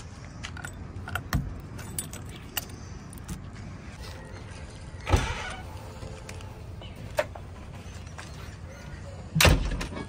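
Metal clicks and knocks from the cab door handle and latch of a JCB 3DX backhoe loader as the door is worked and the machine is climbed. Two heavy thumps stand out, one about halfway through and a louder one near the end.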